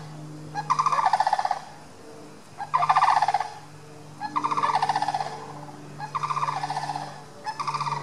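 Sandhill cranes calling: about five loud, rolling, rattling calls, each lasting about a second and coming every second and a half or so, over a steady low hum.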